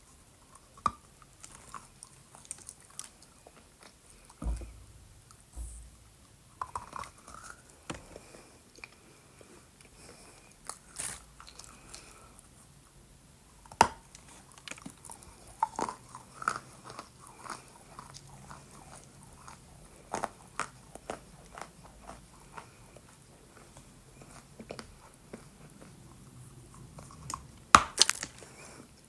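Close-up biting and chewing of wet 'Sakura' clay: irregular crunches and soft wet clicks, with a louder run of crunches near the end.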